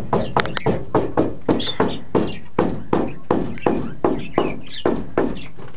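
Rapid, even knocking, about three to four sharp strikes a second, each dying away quickly, with a few faint budgie chirps.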